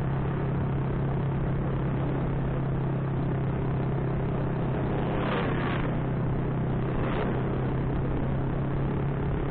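Honda Supra motorcycle's four-stroke single-cylinder engine running steadily at cruising speed, under an even rush of road and wind noise. Two brief louder rushes come about halfway through.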